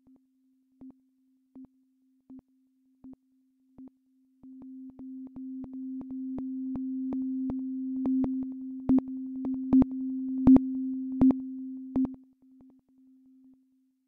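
Electronic music: a steady low synth drone with sharp clicking pulses. The clicks come about every three quarters of a second, then from about four seconds in grow quicker and louder over a swelling tone, and drop away shortly before the end.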